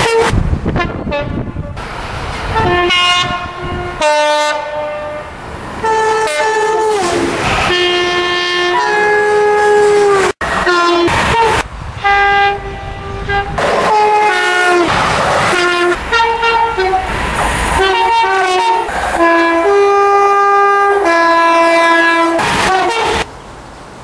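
Two-tone train horns sounded repeatedly by passing trains, each blast a steady chord stepping between a high and a low note, along with the noise of trains passing at speed. The first horn drops in pitch as an electric Pendolino express passes.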